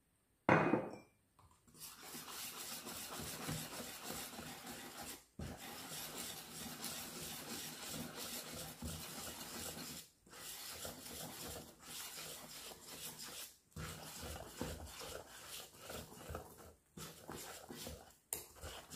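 Wire whisk scraping and swishing against a stainless steel bowl while stirring flour into a thick spinach pancake batter, a steady rubbing scrape broken by a few short pauses. A brief louder clatter comes about half a second in.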